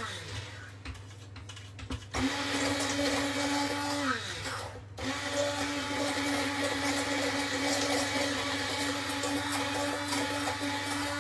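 Electric stick blender puréeing a red pepper dip in a saucepan, its motor whirring in short runs. It winds down right at the start, starts again about two seconds in, winds down again around four seconds, then restarts a second later and runs steadily.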